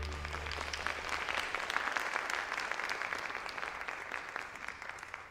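Theatre audience applauding at the end of a ballet variation, the music's final chord dying away just as the clapping begins; the applause thins and fades toward the end.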